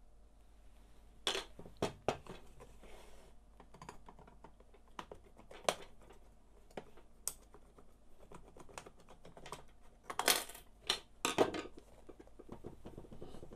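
Hard plastic clicks and knocks of an HP 106A laser toner cartridge being handled and taken apart by hand. The sharp clicks come irregularly, with louder clusters just over a second in and again around ten seconds in.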